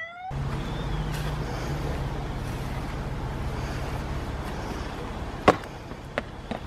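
Steady outdoor rumble of road traffic, with a single sharp knock about five and a half seconds in and two fainter clicks near the end.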